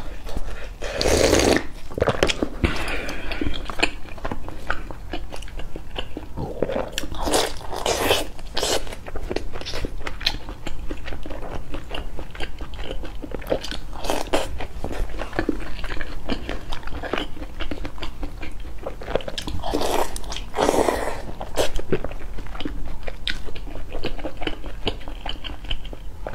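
Close-miked eating: a slurp of broth about a second in, then repeated bites and chewing with crisp crunches.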